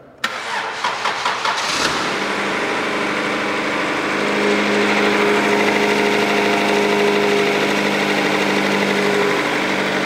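1996 Acura Integra's 1.8-litre twin-cam four-cylinder engine being cranked by the starter for about two seconds, then catching and settling into a steady idle. It runs evenly on all four cylinders with a new distributor cap and rotor fitted, the misfire cured.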